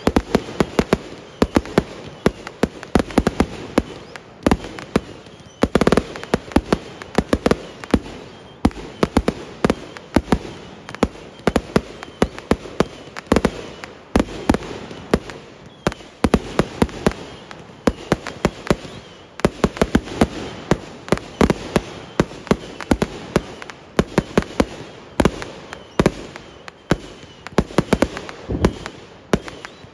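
Fireworks going off in a rapid, continuous barrage: many sharp bangs and crackling reports, several a second, of uneven loudness, over a rumble of overlapping explosions.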